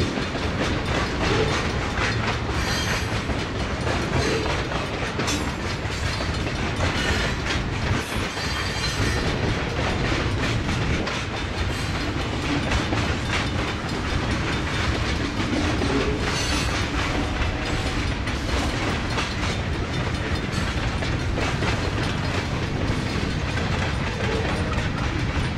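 Freight train tank cars rolling past, a steady rumble of steel wheels on rail with a clickety-clack of wheel clicks.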